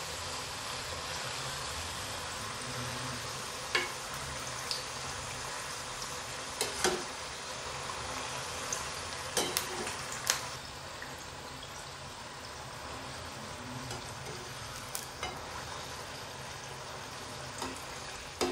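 Gram-flour fafda strips deep-frying in hot oil in a kadhai, a steady sizzle, with a few light clinks of a metal slotted spoon against the pan as the strips are moved.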